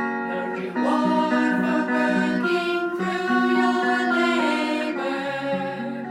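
Music: a song with sustained sung or hummed vocal notes over acoustic guitar accompaniment.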